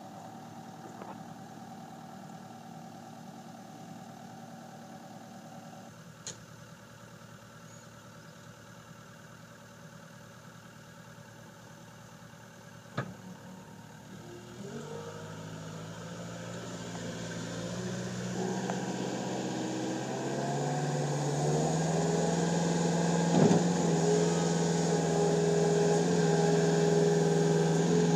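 Cat 252B3 skid steer's diesel engine idling, then from about halfway through the revs climb in steps over several seconds to a high, steady speed that holds to the end. A couple of light clicks come earlier, while it idles.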